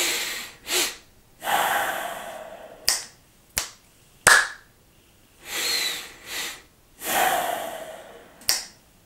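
A man breathing in two parts, a breath in topped by a short sniff, then a long, slow exhale, followed by three sharp hand sounds: a finger snap with the right hand, one with the left, and a clap. The sequence then starts again, with another double inhale and long exhale and a snap near the end.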